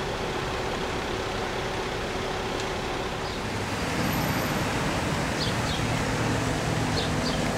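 Street traffic noise: a steady rumble of passing cars, with a motor vehicle's engine growing louder and humming low from about halfway through.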